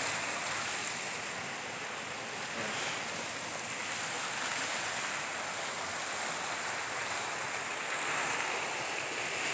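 Shallow stream flowing steadily over a rocky channel: a continuous rushing of water with no break.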